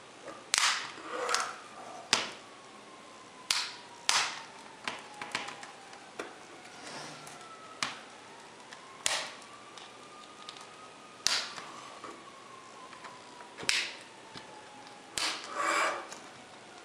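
Plastic snap clips of a netbook's LCD bezel popping loose as the bezel is pried off by hand: about a dozen sharp, irregular clicks and snaps, with a longer crackling stretch near the end.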